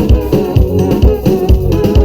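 A live band playing music through a JBL SRX PA with subwoofers: drum kit, bass, guitar and keyboards, with a heavy kick drum thumping about twice a second.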